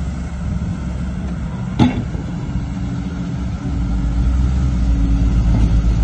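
Heavy diesel machinery, an excavator and dump trucks, running steadily with a low drone. A single sharp knock about two seconds in, and from about halfway the low rumble grows louder.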